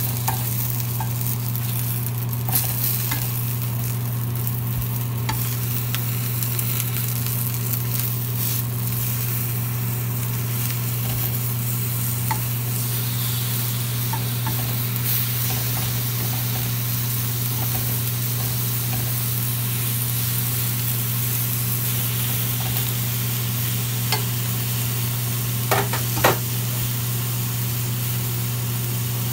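Dried ancho chiles, tomato, onion and garlic sizzling steadily as they toast in a nonstick frying pan, with a steady low hum underneath. Now and then metal tongs click against the pan, loudest twice near the end.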